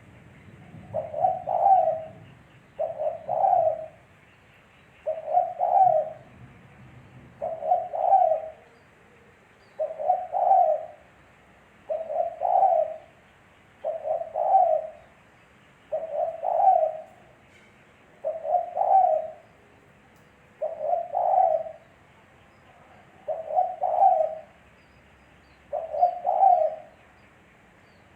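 Spotted dove (tekukur) cooing: a short phrase of several coos, repeated steadily about every two seconds.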